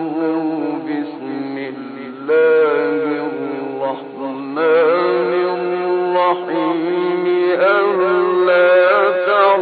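Male Quran reciter chanting in the melodic tajweed style, holding long ornamented notes that waver up and down in slow phrases. Short pauses for breath come about two seconds in and again about four seconds in, each followed by a louder phrase.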